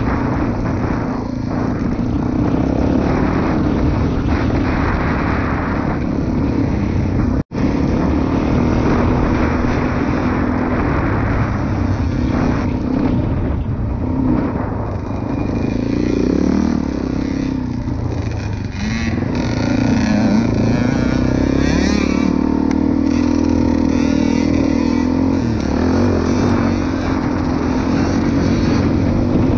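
Suzuki DRZ400E's single-cylinder four-stroke engine running under riding load, heard from the rider's seat. Its pitch rises and falls as the throttle is worked. The sound cuts out for an instant about seven and a half seconds in.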